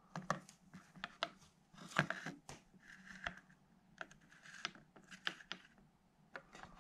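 Small Victorian and Edwardian glass inkwells being lifted and set back down on a windowsill: irregular light clicks and taps of glass on the sill and against neighbouring bottles, with a brief soft scrape or two.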